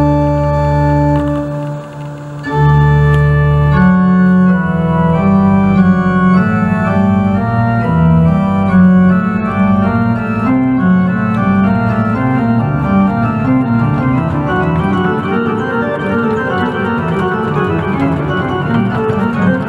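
Organ played with manuals and pedals: held chords, a brief dip in level just before two seconds in, then fast running notes over a moving pedal bass from about four seconds in.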